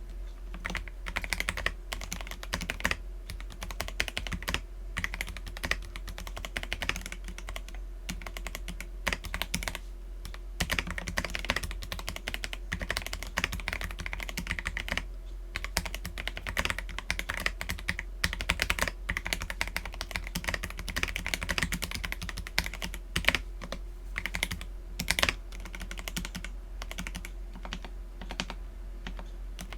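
Mechanical keyboard, an Akko PC75B with lubed Akko Jelly Black linear switches and Cherry-profile PBT keycaps, typed on continuously in a fast, even stream of key clacks, with a few louder strokes here and there.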